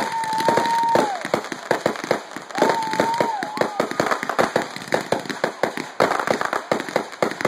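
Fireworks display: dense, rapid crackling and popping from crackle stars and bursting shells. Two whistles are held about a second each, one at the start and one about two and a half seconds in, each dropping in pitch as it ends.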